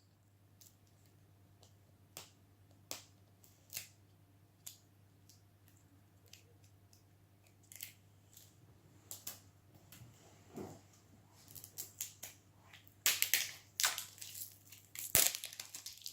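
Plastic and paper wrapping of a LOL Surprise toy ball being peeled off, torn and crinkled in scattered short rustles and snaps. The rustles are sparse at first and come busier and louder in the last few seconds.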